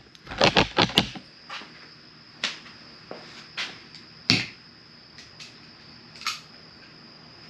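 Sharp clicks and knocks of metal hand tools and hardware being handled. A quick cluster comes in the first second, then single clicks follow about once a second, the loudest about four seconds in.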